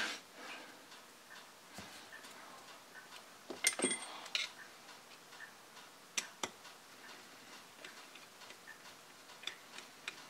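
Faint, scattered clicks and taps of small parts and a hand tool working on an airsoft gas pistol magazine as a part is pushed and worked into place, with a few sharper clicks about four and six seconds in.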